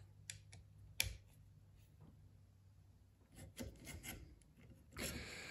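Faint rubbing and a few light clicks of a spindle motor being worked into the CNC's aluminium spindle clamp, with one sharper click about a second in.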